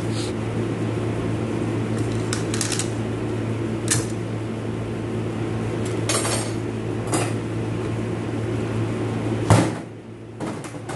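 Metal automatic-transmission parts clinking and knocking as they are handled during teardown: about six separate knocks, the loudest about nine and a half seconds in. A steady low hum runs underneath and drops out for a moment just after the loudest knock.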